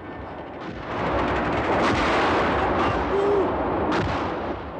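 Battle sound effects: a dense, continuous din of gunfire and exploding shells that swells about a second in, with sharp blasts near two and four seconds.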